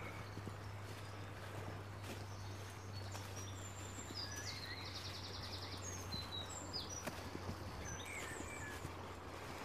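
Small wild birds singing in short, high chirping phrases, with a rapid trill about five seconds in, over a steady low hum and soft footsteps on a grassy path.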